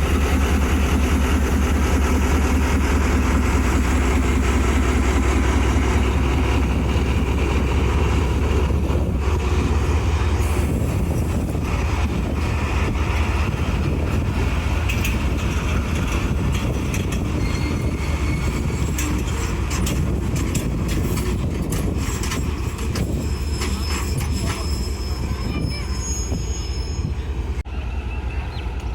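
ZCU-30 diesel locomotive's engine running with a heavy low drone as the train pulls out. About ten seconds in the drone eases and the coaches' wheels clack over the rail joints as they roll by. Thin high wheel squeals come in near the end.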